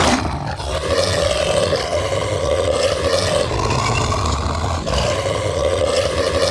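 Movie werewolf sound effect: a long, unbroken growling snarl with a steady pitch and a deep rumble beneath, dipping only briefly near the end.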